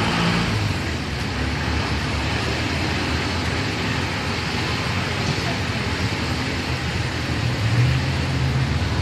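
Steady vehicle running noise: a low engine hum under even road noise, as from a car driving slowly along a street.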